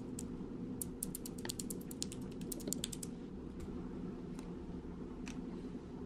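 Small plastic clicks and ticks of fingers handling a tiny lens protector film on a DJI Pocket 2 camera's lens housing: a quick run of ticks about a second in, then a few single clicks, over a steady low hum.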